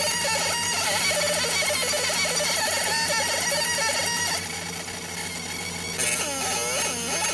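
Laser engraver marking a flashlight body: a buzzing chirp whose pitch keeps sliding up and down as the beam traces the lettering, over a steady low hum. It drops quieter a little past the middle and comes back about six seconds in.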